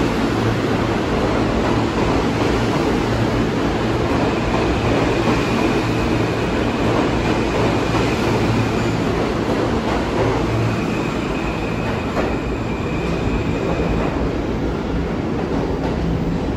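New York City subway train running, a loud steady rumble of wheels on track. A faint high tone comes in over it twice, about four seconds in and again about eleven seconds in.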